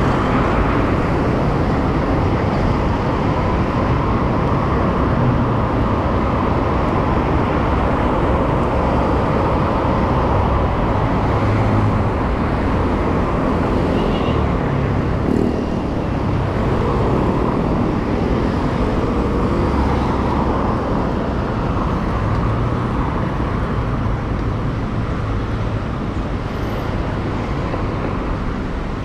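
City road traffic: a steady wash of car engines and passing vehicles with a low rumble, heard from a moving bicycle.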